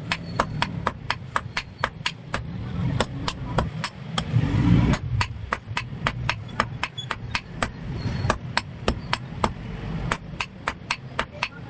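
Hand hammer striking iron on an anvil in a steady rhythm, about three blows a second, each with a short metallic ring. There is a brief break about four seconds in. A low rumble runs underneath.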